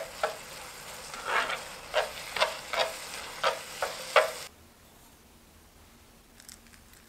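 Buldak ramen noodles with squid and onion sizzling in a hot frying pan while being stirred, with about nine sharp stirring strokes over the hiss. The sizzle cuts off suddenly about four and a half seconds in, leaving quiet room tone.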